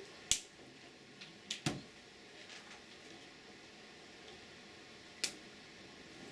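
A few sharp hand slaps and taps from signing over faint room hiss: one about a third of a second in, a quick pair about a second and a half in, and one more about five seconds in.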